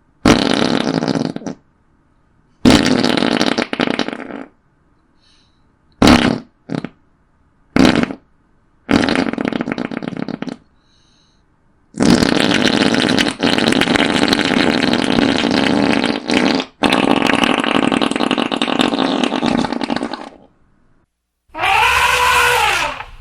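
A series of fart sound effects played one after another, some short blasts and some long drawn-out ones lasting several seconds. Near the end comes one whose pitch rises and falls.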